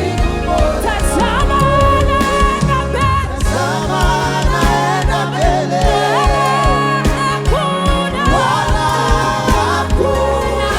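Live gospel praise and worship music: sung vocal lines gliding in pitch over sustained instrumental accompaniment with a deep bass.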